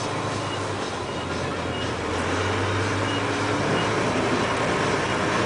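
Large rigid-frame dump truck's diesel engine running steadily with a low hum while its body is raised to tip a load.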